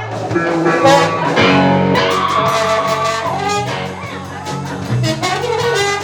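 A live band playing an instrumental passage: guitar and held melodic notes over a line of bass notes.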